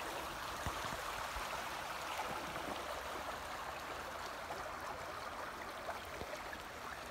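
Small open creek running between snow and ice banks: a steady rush of flowing water.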